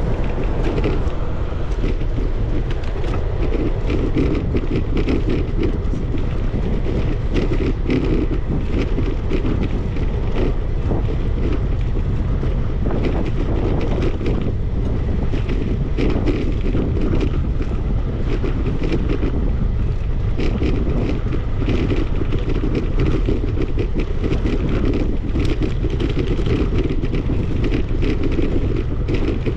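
Wind buffeting the microphone of a camera riding on a moving bicycle, mixed with tyre and road noise: a steady, deep rushing sound with many small rattles and ticks.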